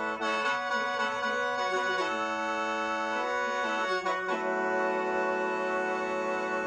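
Khaen, the Lao bamboo free-reed mouth organ, played solo: several reeds sound together as sustained chords over a drone, shifting every second or so, with a long low note held through the second half.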